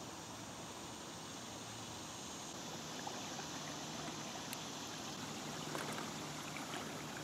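Water washing and splashing around the bucket floats of a small homemade pontoon boat moving under trolling-motor power, getting a little louder from about three seconds in as the boat comes closer.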